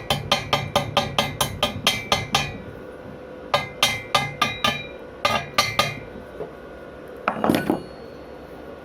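Chipping hammer knocking slag off a fresh rutile-electrode weld bead: quick metallic strikes, about five a second, in three runs. A short scraping sound follows near the end.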